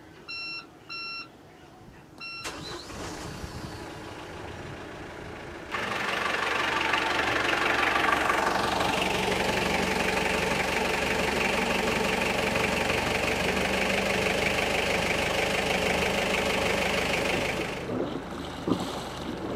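Volvo Penta control panel beeps a few times, then the Volvo D2-60 four-cylinder turbodiesel is started. From about six seconds in it runs loudly and steadily, nice and smooth, fresh from its oil change.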